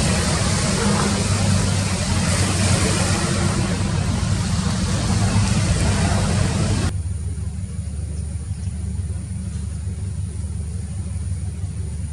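An engine's low, steady rumble under a loud hiss, and the hiss cuts off suddenly about seven seconds in, leaving only the rumble.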